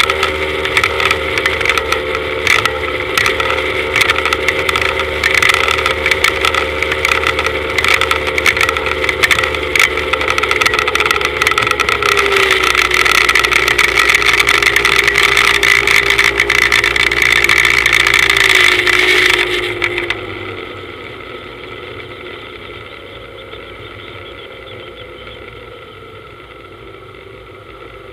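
Speedboat engine running at speed under a loud rush and buffeting of wind and water, its note dipping slightly about halfway through. About two-thirds of the way in, the rush cuts out and the level drops sharply, leaving the engine running much more quietly as the boat comes off the plane.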